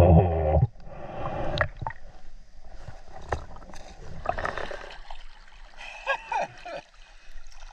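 River water gurgling and splashing around a snorkeler moving in the water, with scattered small clicks and knocks, heard first underwater and then at the surface.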